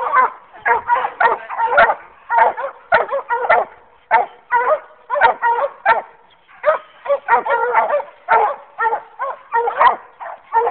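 Coonhounds barking over and over, short pitched barks about one to two a second, some running together into longer bawls.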